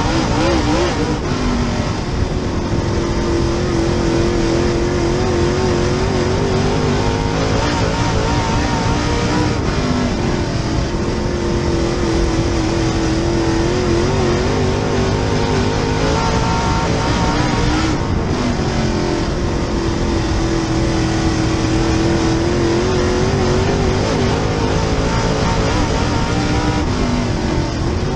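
Super Late Model dirt race car's V8 engine at racing speed, heard from inside the car. The engine note holds high, then dips and climbs back roughly every eight seconds as the car laps the track, over heavy road and mechanical noise.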